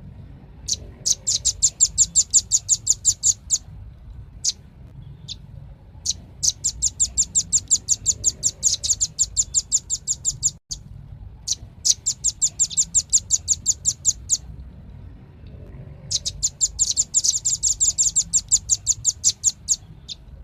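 Velvet-fronted nuthatch (rambatan paruh merah) singing four rapid, high trills of about eight sharp notes a second. Each trill lasts two to four seconds, with short pauses between them and a few single notes in the gaps.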